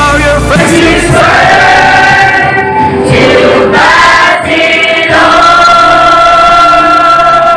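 Voices singing a Christian worship song over instrumental backing, holding long sustained notes.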